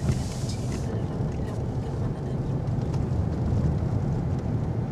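Pickup truck's engine and tyres heard from inside the cabin, a steady low rumble, while it descends a steep mountain road held back in a low gear by engine braking. A brief hiss in the first second.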